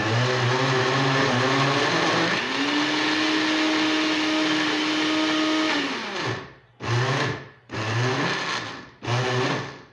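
Electric countertop blender motor running on a thick load of banana, oats and chia seeds. It runs for about six seconds, its pitch rising a couple of seconds in, then stops and is pulsed in three short bursts.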